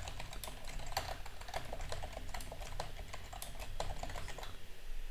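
Typing on a computer keyboard: a quick, irregular run of key clicks that stops about four and a half seconds in.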